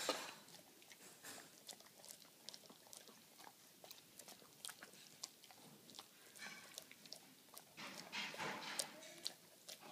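A dog eating off a plate: faint chewing and licking with scattered light clicks, busier near the end.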